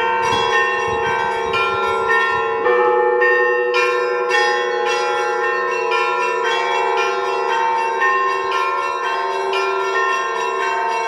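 Orthodox monastery bells rung in a zvon: several bells of different pitches struck in a quick repeating pattern, their tones ringing on over one another, with a low bell humming underneath.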